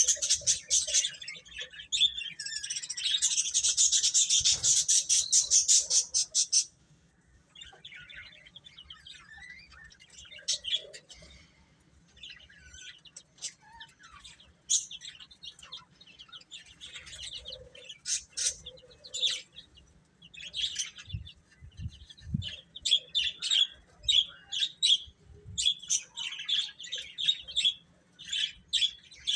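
Baby chicks peeping. For the first several seconds a dense run of rapid, high peeps is loud, then it cuts off suddenly. After that come scattered, quieter peeps, which grow busier again near the end.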